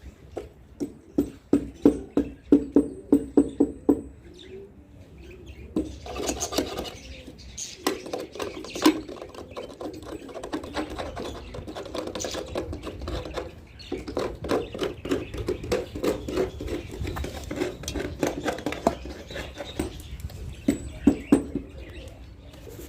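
Domestic pigeons cooing in short repeated pulses, over many small clicks, knocks and scrapes.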